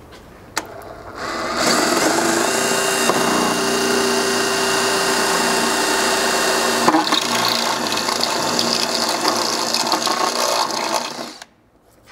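Cordless drill boring a hole through the sheet-steel pinch seam. It starts about a second in with a steady whine, catches briefly about halfway through, runs on, and stops about a second before the end.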